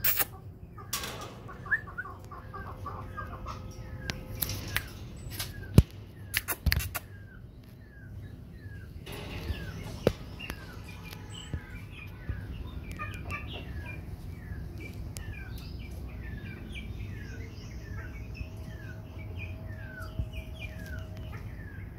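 Short chirping calls that fall in pitch, a few each second: a quick run near the start, then a long series through the second half. Several sharp knocks sound in the first seven seconds.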